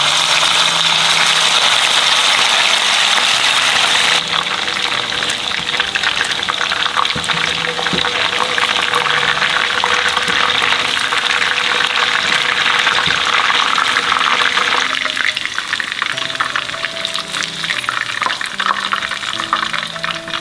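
Chicken pieces deep-frying in hot oil, a loud dense sizzle and crackle. It is strongest in the first few seconds as the raw chicken goes into the oil and thins a little later on as the pieces brown.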